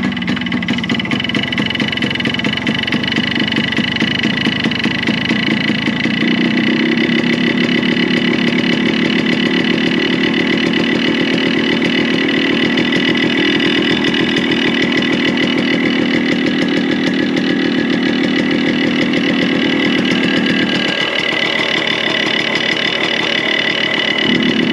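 Yamaha RX 100's two-stroke single-cylinder engine running with an abnormal internal noise, which the mechanic suspects comes from the crankshaft or the cylinder block and piston. It is revved up and held higher about six seconds in, drops back about twenty-one seconds in, and is raised again near the end.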